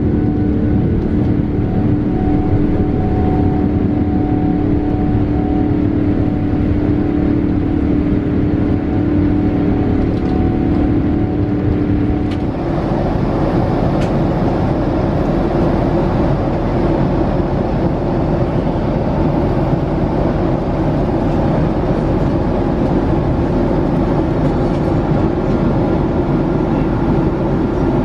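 Steady cabin noise of a Boeing 787-8 airliner moving on the ground: a jet engine hum with a steady droning tone. About twelve seconds in it changes abruptly to a rougher, fuller steady cabin noise without the tone.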